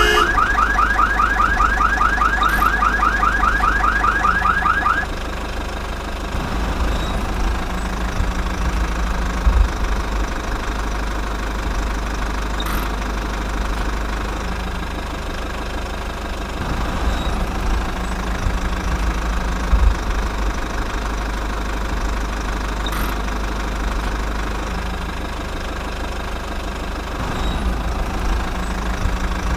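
Electronic toy-vehicle sound effect of fast repeated rising chirps, about five a second, that stops about five seconds in. It gives way to the steady low rattling hum of a small toy motor, with a few scattered clicks.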